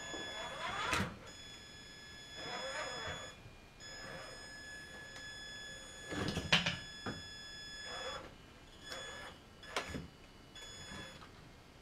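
Traxxas Summit RC truck's electric motor and drivetrain whining in short throttle bursts, sometimes rising in pitch, as it climbs a pile of firewood. Several sharp knocks from the tyres and chassis striking the logs, the loudest about six and a half seconds in.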